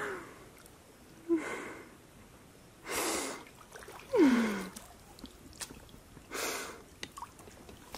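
A person's short breathy exhalations and soft laughs, four of them spread a second or two apart, with one falling voiced sigh about four seconds in.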